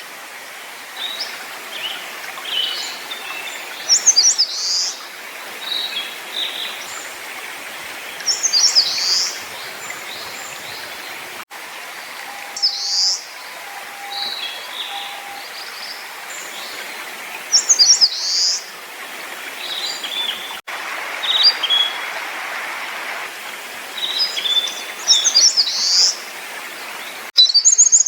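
Small wild songbirds singing: a short, high, quick song phrase repeated every four to five seconds, with scattered chirps between, over a steady background hiss. The sound drops out briefly a few times.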